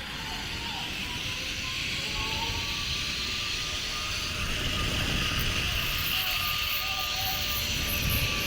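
Zipline trolley pulleys running along the steel cable: a steady whirring hiss with a faint thin whine, growing slowly louder. Wind buffets the microphone underneath.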